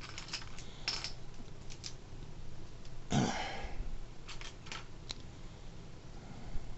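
Loose plastic Lego bricks being picked up and set down by hand on a wooden tabletop: a scattered series of short, sharp clicks, with one longer, louder rustle about three seconds in.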